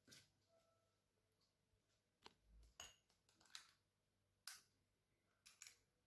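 Near silence broken by a few faint clicks and scrapes from a metal spring-lever ice-cream scoop working through soft ice cream and releasing a ball into a ceramic ramekin.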